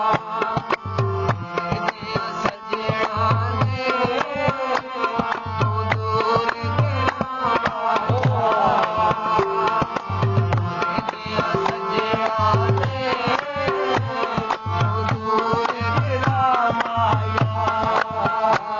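Punjabi folk music (dohre mahiye): a hand drum keeps a fast, steady rhythm with repeated deep strokes under a melody whose notes bend and glide.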